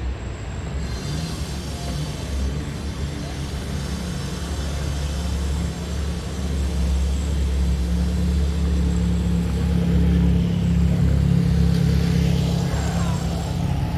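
Low, steady engine rumble of motor vehicles, louder from about seven seconds in.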